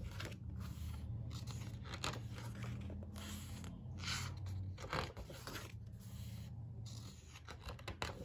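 Paper pages of a hardbound photo book being turned and rubbed flat by hand: several short papery swishes and rubs, the strongest about four to five seconds in. A low steady hum runs underneath.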